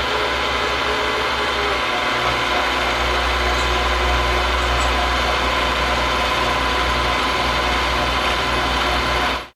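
Vertical milling machine running steadily with a low hum, its end mill taking a finishing cut along the side of an aluminium part at a reduced feed for a better surface finish.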